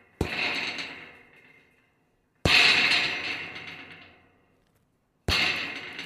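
Scrap metal rattling in three separate crashes, each starting sharply and jangling away over a second or two. The second crash is the loudest.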